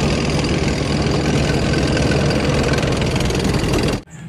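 Main battle tank on the move: its engine runs loud and steady under the noise of its tracks, then cuts off suddenly about four seconds in.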